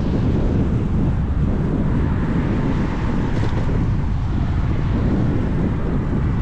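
Wind rumbling steadily over a cyclist's POV camera microphone while riding.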